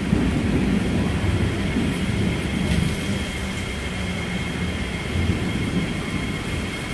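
Singapore MRT train rumbling past, with a steady high whine setting in about three seconds in.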